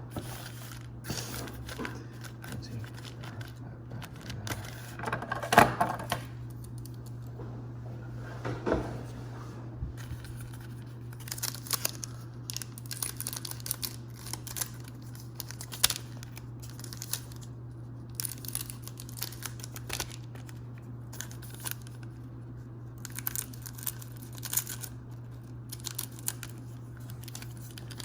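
Trading-card pack wrappers being torn open and crinkled, with cards rustling as they are handled: irregular crackling and rustling, louder about five and nine seconds in. A steady low hum runs underneath.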